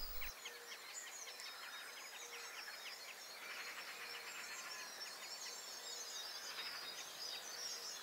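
Faint outdoor meadow ambience: small birds singing and chirping at a distance, with a rapid run of high ticks in the first few seconds.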